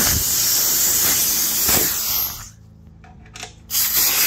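Compressed air hissing out of a Husky 8-gallon air compressor's quick-connect coupler as the air hose is pushed onto it: one long hiss that stops about two and a half seconds in, then a shorter burst near the end.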